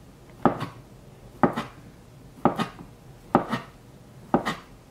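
Chef's knife slicing a peeled potato on a plastic cutting board: a sharp knock of the blade hitting the board about once a second, five strokes in all.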